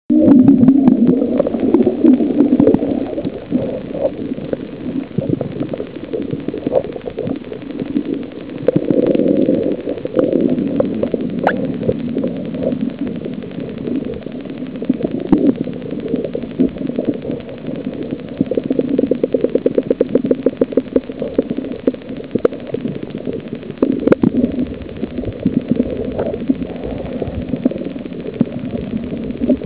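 Muffled underwater sound from a camera held below the surface: low rumbling and gurgling water movement, with scattered sharp clicks and a fast run of clicks about two-thirds of the way through.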